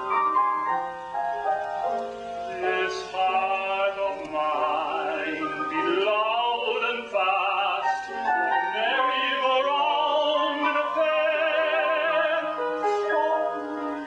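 A man singing a slow ballad in a trained, classical style with vibrato, accompanied by piano.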